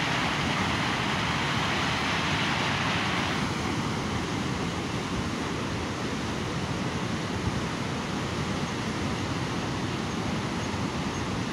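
White-water mountain stream rushing over boulders: a steady noise of tumbling water. It is brighter and hissier for about the first three seconds, then duller.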